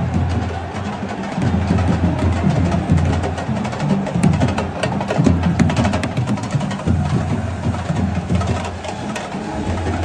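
Drums playing a fast rhythm, with many sharp slaps over a deep pulsing beat.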